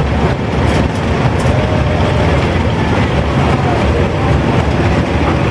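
Engines of several antique farm tractors running at low speed as they drive slowly past one after another, a steady, dense low engine sound, with faint voices of people nearby.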